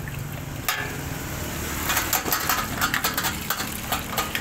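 Metallic knocking and clinking from the stainless-steel parts of a coconut-milk press being handled during cleaning: one sharp knock about a second in, then rapid irregular clinks from about two seconds in, over a steady low hum.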